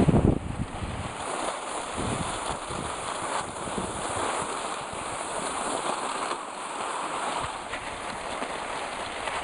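Skis and a pulka sled gliding over packed snow, a steady hiss of runners on snow mixed with wind on the microphone. There is a brief low thump right at the start.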